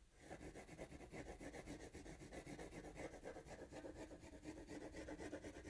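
Coloured pencil scribbling across drawing paper in quick back-and-forth strokes, shading in waves: a faint, steady scratchy rubbing.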